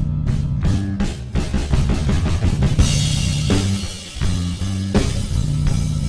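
Background rock music with a steady drum beat, bass and guitar.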